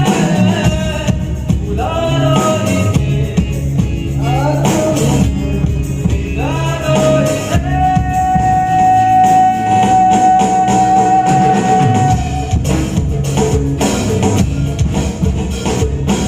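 Music with a lead melody over a steady bass and percussion, with one long held note in the middle.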